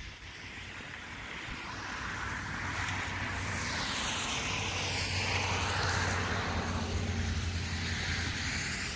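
An aircraft passing overhead: a broad engine noise with a low hum swells steadily over the first five seconds or so, then holds near its loudest, with a sweeping whoosh as it goes by.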